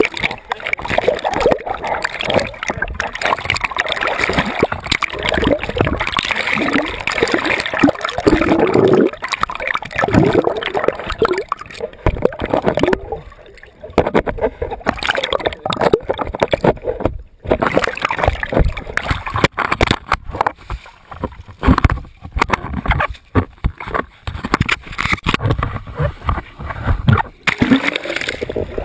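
Turbulent water churning and splashing, with occasional voices.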